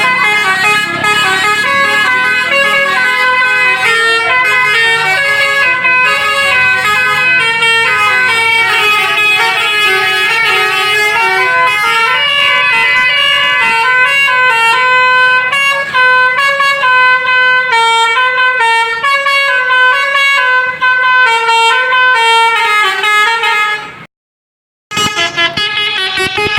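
Basuri multi-tone 'telolet' bus horn playing a quick melody, several notes a second stepping up and down. It cuts out for about a second near the end, then plays again.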